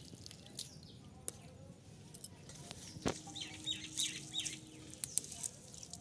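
Chickens calling, with a run of short, high, falling calls about halfway through. A few light knocks are heard between them.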